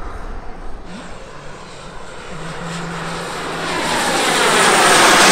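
Gas turbines of large-scale radio-controlled Alpha Jet models (JetCat P-400s) running in flight. The sound grows much louder from about three and a half seconds in as a jet closes in, with a sweeping hiss over the top.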